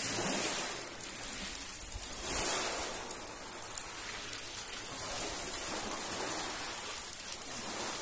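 Small Black Sea waves washing onto a pebble shore, rising in a few soft surges, with a steady patter of light rain over it.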